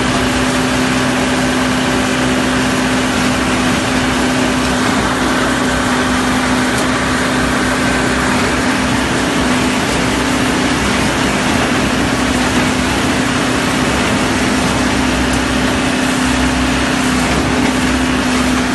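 Diesel engine of a concrete mixer pump running at a steady speed, with a constant hum over dense mechanical noise.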